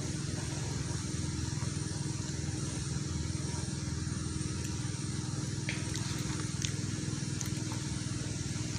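A steady low motor hum, with a few faint light clicks.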